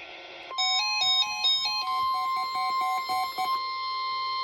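Emergency Alert System warning tone: a steady, single-pitch electronic alert tone starts about half a second in and holds, with a quick stepping run of short electronic beeps over it until about three and a half seconds in.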